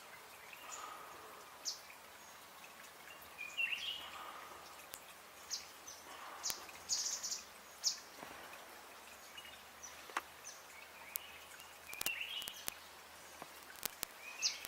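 Small forest birds calling: short high chirps repeated every second or so, with a few lower notes that sweep up and down, over a steady background hiss. A few sharp clicks come near the end.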